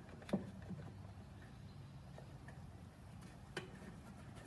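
Faint clicks and taps of a small clamp and glued wood pieces being handled on a sander's table, two sharper clicks about a third of a second in and about three and a half seconds in, over a low steady hum.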